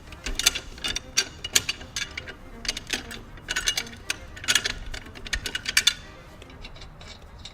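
Metal clicking and scraping of a lug wrench working a car's lug nuts loose and turning them off the wheel studs, in irregular bursts that thin out about six seconds in.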